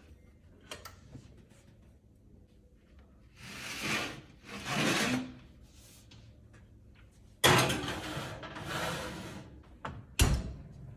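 Kitchen handling sounds: two swells of rustling or scraping, then a sudden slide or scrape that trails off, and a single knock near the end.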